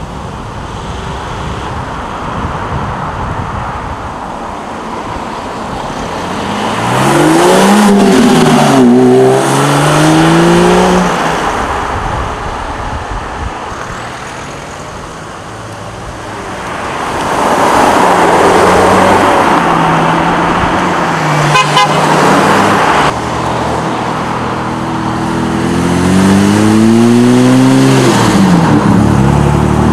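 Sports cars pulling away one after another, their engines revving with rising pitch and dropping at each gear change, in three loud spells with the last near the end.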